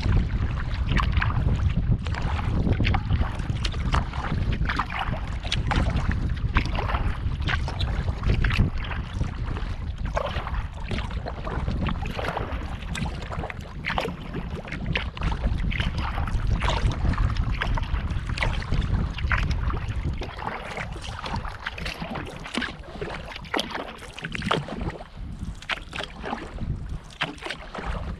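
Water splashing and lapping around a sea kayak as it is paddled, with frequent short splashes, over a low wind rumble on the microphone that eases about two-thirds of the way through.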